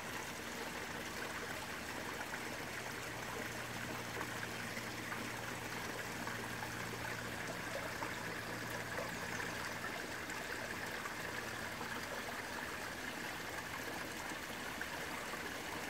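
Small floating fountain in a garden pond, its spray falling back onto the water in a steady trickling splash.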